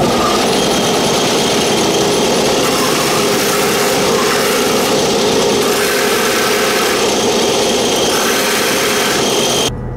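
Belt and disc sander running steadily while the edge of an aluminium plate is held against the moving sanding belt. The sound cuts off suddenly near the end.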